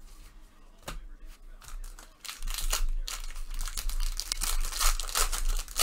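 Plastic trading-card packaging crinkling and rustling as cards are handled. It starts with a couple of light clicks, turns to dense crackling about two seconds in, and ends on a sharp, loud crinkle.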